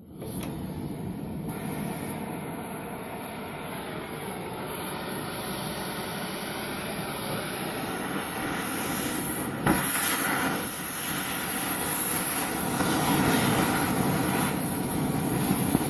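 Cutting torch flame hissing steadily as it burns into a frosted cake. It starts suddenly, grows a little louder over time, and has a brief sharp burst about ten seconds in.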